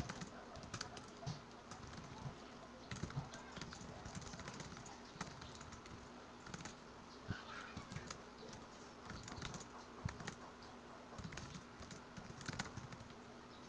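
Typing on a laptop keyboard: faint, rapid, irregular key clicks in runs with short pauses.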